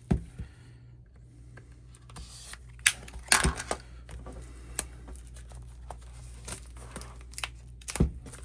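Hands handling a boxed album and its packaging: scattered taps and knocks with light crinkling, with sharper knocks just after the start, around three seconds in and near the end.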